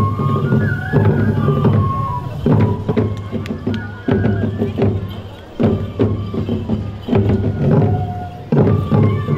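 Festival music for a tiger dance: a large drum struck in heavy beats about every one and a half seconds, under a high flute playing a wavering melody.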